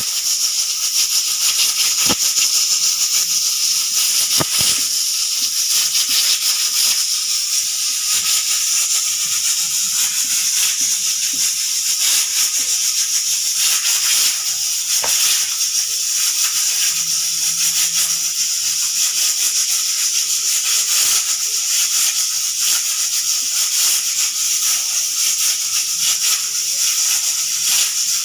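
Pressure cooker venting steam through its whistle weight: a loud, steady hiss with a fine rattle that runs on without a break.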